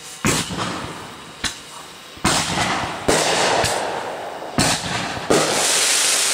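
Aerial fireworks bursting: about six sharp bangs in five seconds, each trailing off in a fading hiss.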